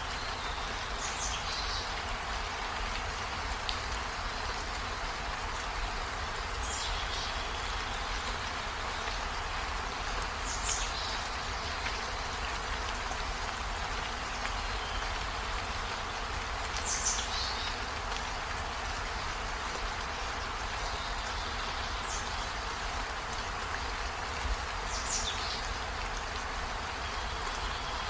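Steady rain hiss, with a short high chirp every few seconds.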